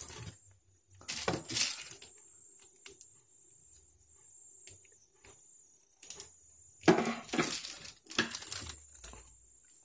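Scraping and rubbing strokes on a steel axe head as sticky tape residue is cleaned off it, in two short spells: one about a second in and another near the end.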